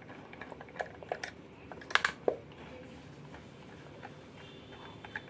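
Scattered small clicks and taps of a screwdriver working on the plastic casing of a Bluetooth speaker, the loudest cluster about two seconds in, as its screws are being undone.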